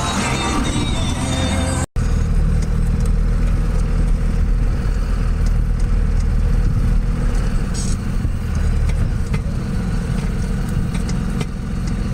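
Truck engine running steadily, a low hum. The sound cuts out for an instant about two seconds in.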